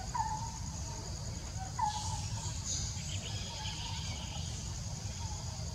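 Insects trilling steadily in a high, pulsing chorus, with short falling chirps about a second apart over a low steady rumble.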